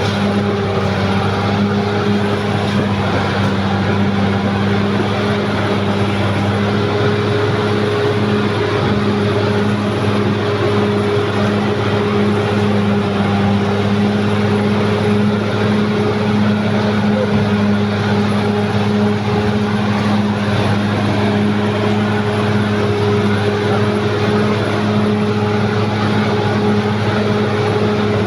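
Caterpillar D6R XL bulldozer's diesel engine running steadily as a constant drone, its note shifting slightly higher about seven seconds in.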